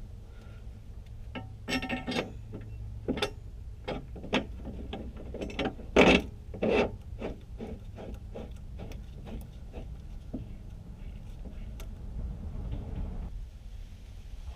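Hand tools and metal parts being handled: an irregular run of clinks, knocks and scrapes, loudest about six seconds in, then a softer rough scraping that stops abruptly near the end.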